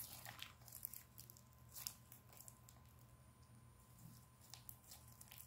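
Faint squishing and crackling of homemade glue slime being kneaded and stretched by hand, with scattered small clicks and pops at irregular intervals.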